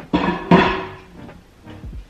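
Two clunks of a plastic dish being set inside an over-the-range microwave, the first just after the start and the second about half a second in, over background music.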